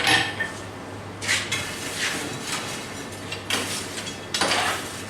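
Hammer blows on hot leaf-spring steel over an anvil, about six metallic strikes roughly a second apart, each ringing briefly, as the steel is bent into a reverse S curve for a vise spring.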